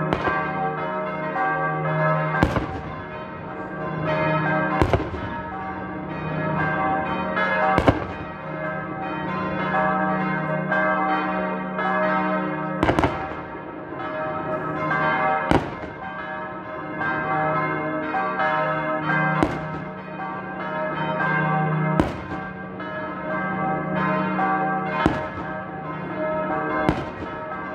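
Church bells ringing without a break, with sharp black-powder shots from the Christmas shooters' hand mortars (Handböller) booming about nine times, every two to five seconds.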